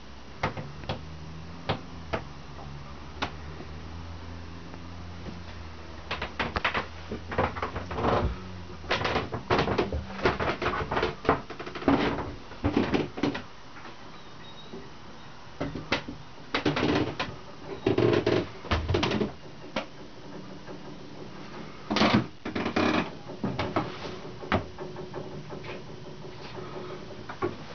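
Irregular knocks, clunks and rustles of someone moving about a small wooden yacht cabin, coming in bunches, over a low hum that fades out about eight seconds in.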